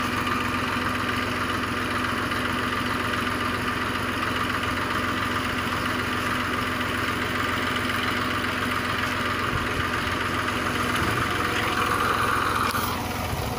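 Massey Ferguson 1035 DI tractor's three-cylinder diesel engine running steadily while its hydraulic lift tips a trolley loaded with soil. A brief louder hiss comes near the end.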